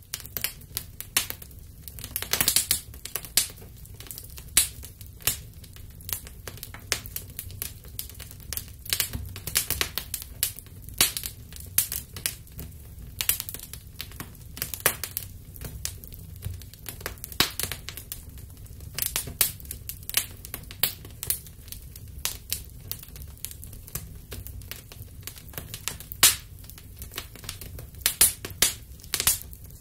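Kerosene fire burning inside a carved pumpkin, crackling and popping irregularly over a steady low rumble.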